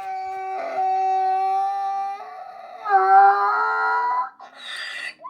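A dog howling: two long, steady howls, the second starting about three seconds in and slightly higher, followed by a short rustling burst near the end.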